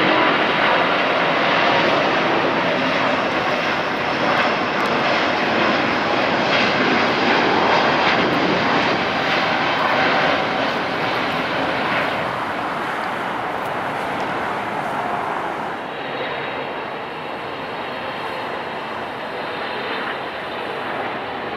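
Large jet airliner's engines, a loud, steady rush that eases off somewhat in the second half.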